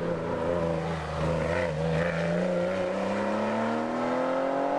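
GT-class race car engine accelerating out of a hairpin. Its note wavers through the turn, then rises steadily in pitch as the car pulls away up the road.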